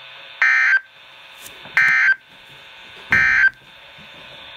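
Three short Emergency Alert System end-of-message data bursts (the SAME "NNNN" code) on NOAA Weather Radio. Each is a brief electronic burst about a third of a second long, sent about 1.3 seconds apart over a steady radio hiss, marking the end of the alert message.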